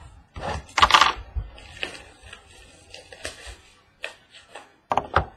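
Cardboard trading-card mini boxes being handled and set down on a wooden tabletop: a string of light knocks and clacks, with some rustling in between and a quick run of clicks near the end.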